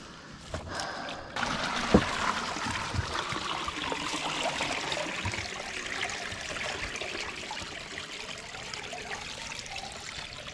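Water pouring and splashing out of a swamped kayak as it is tipped to empty it, starting suddenly about a second and a half in and running on steadily, with a single thump just after it starts.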